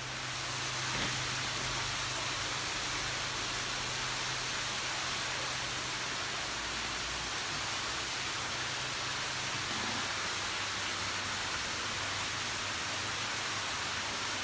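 Steady rushing hiss of water churning into an indoor koi pond, with a low hum that fades out about halfway.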